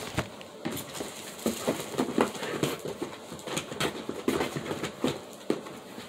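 Rummaging through a box of makeup products: packaging knocking and clacking together in irregular light taps, with some rustling.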